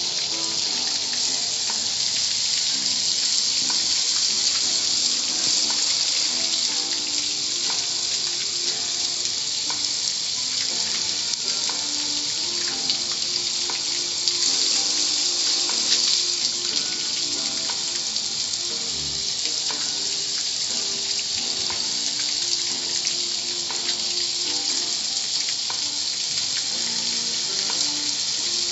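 Steady hiss of water spraying at a car wash, unbroken throughout.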